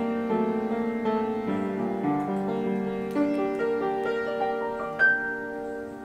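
Background piano music: a slow melody of sustained notes over held chords. A sudden, brighter, louder note rings out about five seconds in, and the music then grows quieter.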